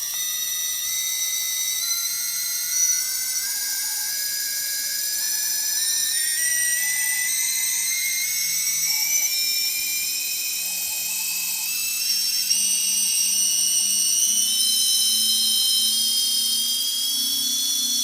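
Four T-Motor 2206 2000KV brushless motors on a quadcopter running together: a high, many-toned whine that slowly climbs in pitch as the throttle is raised.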